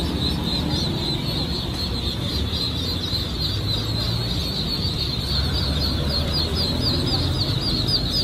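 A dense chorus of many newly hatched ducklings peeping, high-pitched chirps overlapping without pause, over a steady low rumble.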